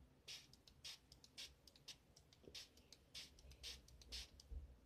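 Plastic trigger spray bottle spraying water onto a face: a quick run of short, faint spritzes, about two or three a second.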